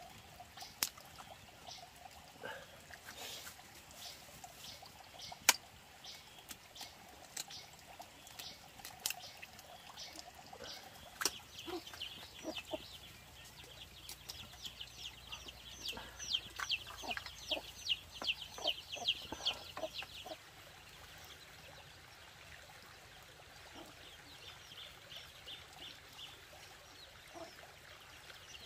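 Chickens clucking and birds chirping, with scattered sharp knocks and clicks. About halfway through comes a rapid run of high chirps lasting several seconds.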